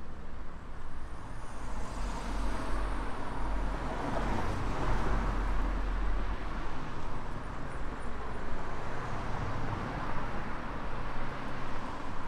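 Road traffic passing on a town main road: cars' engines and tyre noise in a steady wash, with a vehicle going close by about four to six seconds in, its low rumble swelling and fading.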